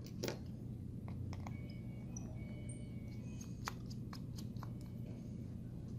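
Faint, sparse small clicks of a screwdriver and tiny screws being handled on a work surface, over a steady low hum.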